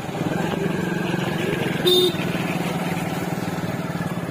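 Motorcycle engine running steadily while riding, with one short horn beep about two seconds in.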